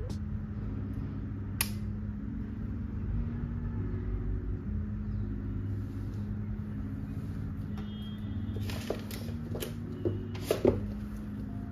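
Soft background music over a low steady hum, with a few sharp clicks and taps from the tablet and stylus being handled, several of them close together near the end and the loudest about ten and a half seconds in.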